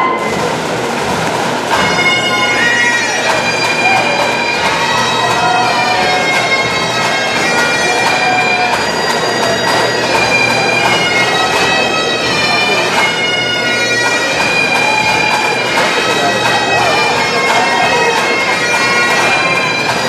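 Bagpipes playing a tune over their steady drones for the recessional.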